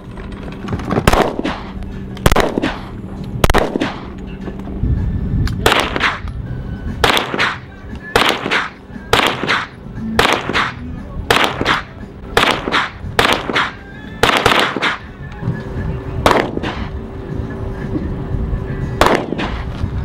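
Strings of 9mm pistol shots, about twenty sharp cracks at irregular intervals, some in quick doubles, over background music.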